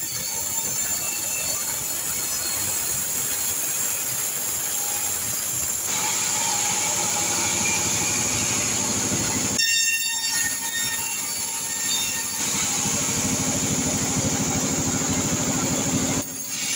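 T.36 sawmill band saw ripping a kecapi (santol) log lengthwise into a beam: a steady high-pitched whine over the hiss of the blade in the wood. The sound shifts abruptly about ten seconds in.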